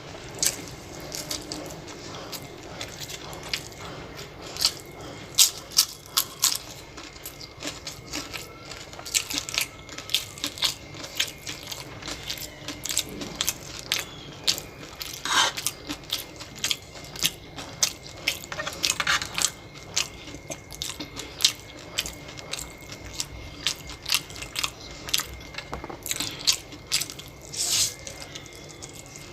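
Close-up eating sounds: a person biting and chewing food, with many irregular crisp clicks and crunches. A faint steady high tone runs underneath.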